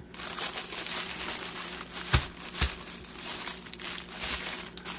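Clear plastic bag of diamond-painting drill packets crinkling and rustling as it is folded and squeezed by hand. Two sharp knocks about half a second apart come a little over two seconds in.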